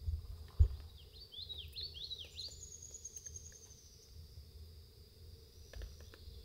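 A small songbird sings a short phrase of about five quick down-slurred notes a second or so in, with a thin high note held after it, over a steady high insect hum and a low rumble. A single sharp knock about half a second in is the loudest sound.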